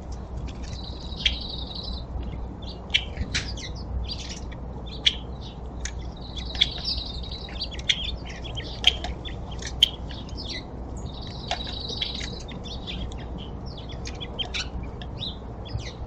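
Songbirds calling: many short, scattered chirps, and three times a trilled song phrase about a second long, roughly five seconds apart.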